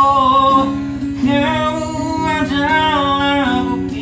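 Acoustic guitar strummed and picked as the accompaniment to a singer who holds long, sliding notes between lines of an Indonesian pop ballad.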